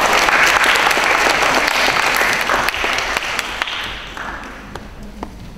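Audience applauding, dying away about three to four seconds in to a few scattered claps.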